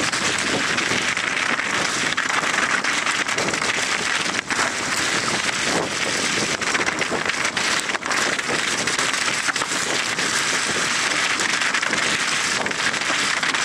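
Mountain bike descending over rocky, hail-covered ground: a steady rush of tyres through wet hail and slush, with wind on the microphone and frequent small rattles and knocks as the bike bumps over rocks.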